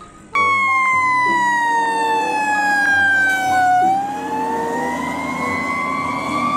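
Fire truck siren wailing: it starts suddenly, slides slowly down in pitch, then climbs slowly back up.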